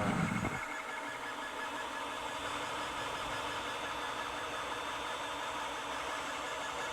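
Creality Ender 5 3D printer running mid-print, its stepper motors and fans making a steady whir with several held whining tones.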